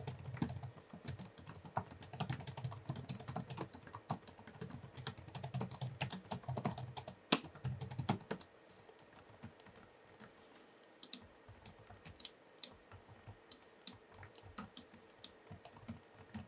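Typing on the Tulpar T7 V20.5 gaming laptop's membrane keyboard: fast, continuous keystrokes for about the first half, then slower, lighter, scattered keystrokes.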